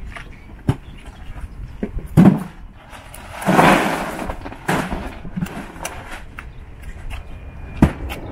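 Scattered knocks and clatter from gear and fish being handled, with a short scraping rustle about three and a half seconds in, over a steady low rumble.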